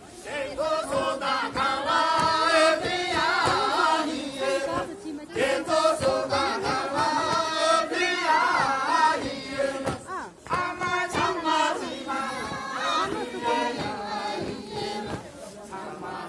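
Several voices singing together in long, wavering held notes.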